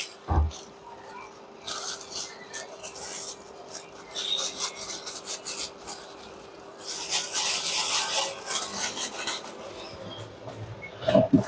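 Irregular scraping and rubbing strokes, busiest in the second half, with a low thump about half a second in and a few sharp knocks near the end, over a faint steady hum.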